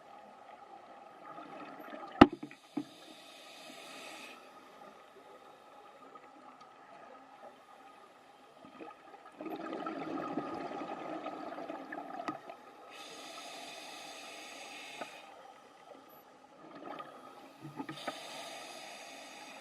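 Scuba diver breathing underwater through a regulator: separate hissing inhalations and a louder, lower rush of exhaled bubbles lasting a few seconds, with a sharp knock about two seconds in.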